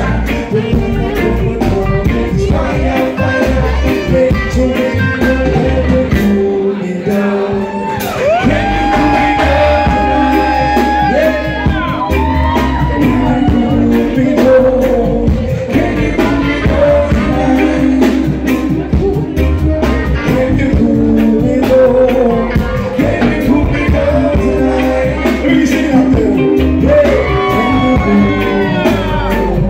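A reggae band playing with a singer: a steady bass and drum groove under long, held sung notes that slide between pitches. The bass and drums drop out for about a second some seven seconds in.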